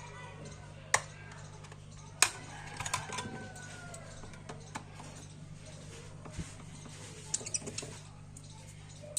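Sharp clicks and taps of small tools on the plastic shell of an M90 Pro earbud during disassembly, the loudest about a second in and two seconds in, with a few more later, over a steady electrical hum.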